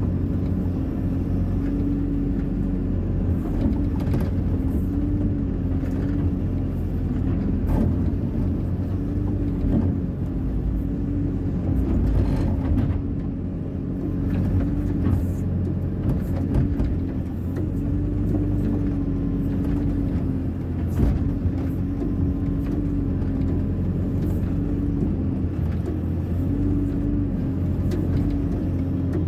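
Hyundai 140 wheeled excavator's diesel engine running steadily, with a higher whine that comes and goes every few seconds and a few light knocks.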